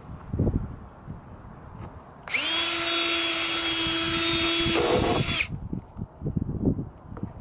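DeWalt 20V cordless drill spinning up about two seconds in and running at a steady whine for about three seconds as it drills out a rivet, the tone shifting briefly just before it stops.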